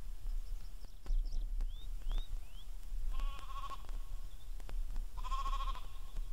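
Sheep bleating twice on open moorland pasture, one wavering call about three seconds in and another about five seconds in. Short rising bird chirps are heard about two seconds in.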